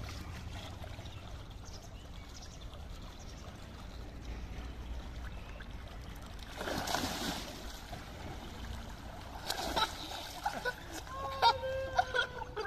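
Pool water splashing, with a burst of splashing about seven seconds in and another near ten seconds, over a steady low rumble. Near the end come several short, high-pitched held cries, the loudest sounds here.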